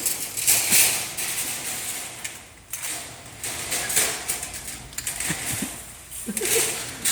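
Refrigerator-evaporator tube expanding machine working, with repeated bursts of high rushing noise every second or two.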